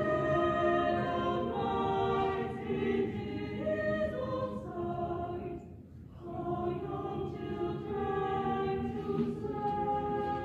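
Mixed-voice high school chamber choir singing a cappella in held chords, with a brief break between phrases about six seconds in before the next phrase begins.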